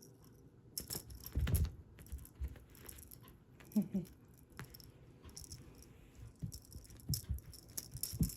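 Cat play: scattered light rattles and clicks, with one short high-pitched vocal call about four seconds in.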